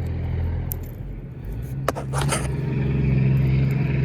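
A motor vehicle's engine running, a low steady hum that rises in pitch and grows louder about a second and a half in, with a few sharp clicks about two seconds in.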